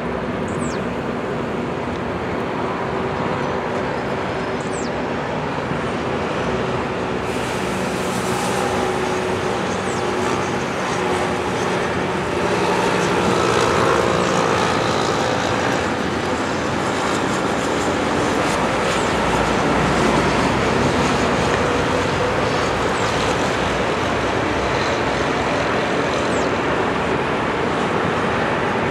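Boeing 737-700 airliner's CFM56-7B jet engines running as it slows on the runway after landing, a steady noise with a faint whine in it that grows louder about halfway through.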